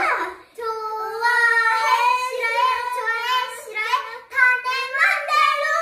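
Young girls singing a song unaccompanied, in long held notes, with a short break about half a second in.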